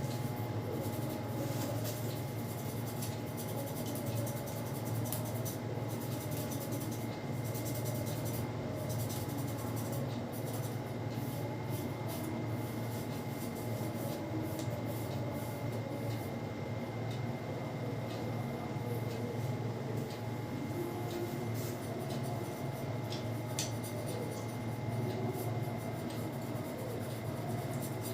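Hands rubbing and scratching through hair and over the scalp during a head massage, with many short scratchy crackles, over a steady low hum.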